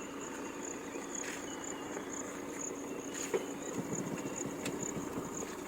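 Fiat Punto Evo hatchback running slowly over a rough off-road track, with a steady low hum and a rougher rumble near the end. A high chirp pulses about twice a second over it.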